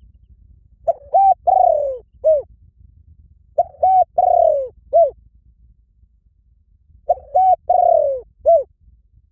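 Spotted dove cooing: three phrases about three seconds apart, each two short coos, a longer falling coo, then a short final coo.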